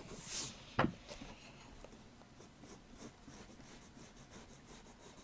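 Pencil scratching lightly over paper in short repeated strokes, sketching a drawing's outline, with a single light knock about a second in.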